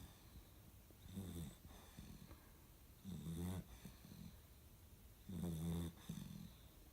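A sleeping pet snoring: three long, low snores about two seconds apart, with quieter breaths between them.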